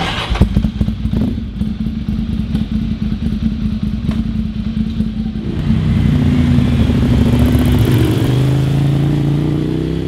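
Ducati Monster 696's air-cooled V-twin engine running at low revs with a rapid beat. From about halfway its pitch climbs steadily as the motorcycle accelerates away.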